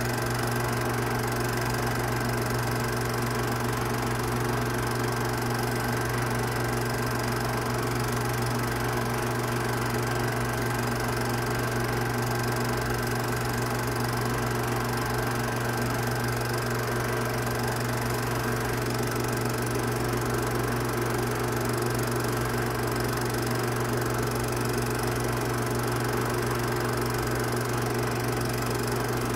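Film projector running steadily: an even mechanical whir with a constant low hum, unchanging throughout.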